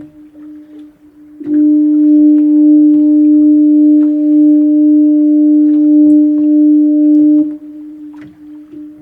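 Foghorn sounding one long, steady, low blast of about six seconds, starting about a second and a half in and cutting off near the end. A much fainter tone at the same pitch carries on before and after the blast.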